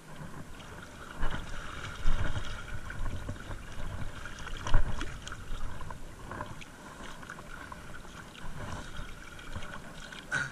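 Shallow seawater sloshing and splashing in uneven surges.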